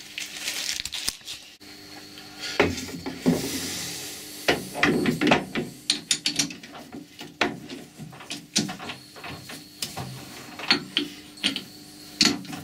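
Metal bar being fitted into a Colchester lathe's three-jaw chuck and the jaws tightened with a chuck key: a run of irregular metal clicks, knocks and scrapes.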